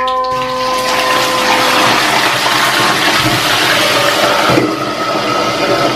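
Catfish deep-frying in hot oil in a wok: a loud, steady sizzle that builds in the first second. It turns a little duller about four and a half seconds in, as the lid goes on the wok.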